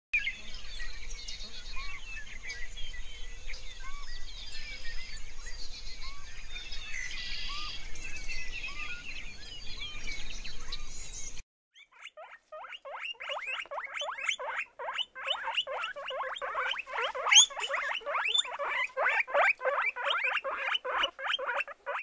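Guinea pigs squeaking: a fast run of short, high squeaks, about five a second, starting about halfway through. Before that, a steady background hiss with small scattered chirps.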